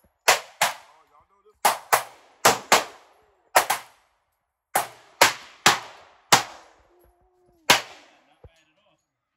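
FN FNX-45 pistol firing about a dozen .45 ACP shots at an uneven pace, each crack followed by a short echoing tail, with a pause near the end.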